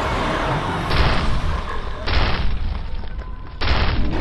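Cartoon fight sound effects: three booming impacts, each a little over a second apart, like heavy blows landing.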